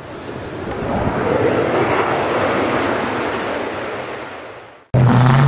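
An aircraft flyby sound swells up to a peak and fades away under an animated channel intro. Music cuts in abruptly near the end.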